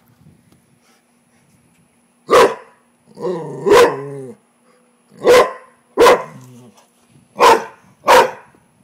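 Rottweiler barking at a frog: six loud, short barks in three rough pairs, beginning about two seconds in, the second drawn out from a brief whine.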